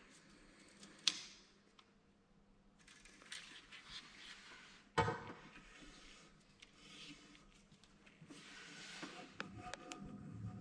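Hand plane shaving a bamboo strip in a metal planing form: several light strokes with a soft scraping hiss, and sharp knocks about one and five seconds in. These are finishing passes, with the plane taking off almost nothing.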